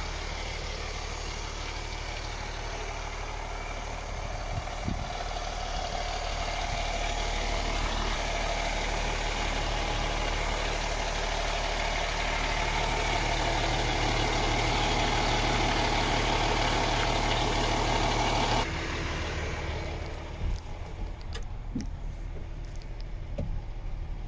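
MAN TGX 18.500 truck's straight-six diesel idling steadily. About three-quarters of the way through, the sound drops suddenly and turns muffled, as heard inside the cab, with a few knocks and clicks near the end.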